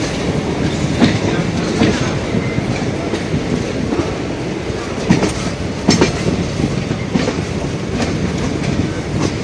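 Passenger train running along the track, heard from aboard: a steady rolling rumble broken by irregular sharp clicks and knocks of the wheels over rail joints.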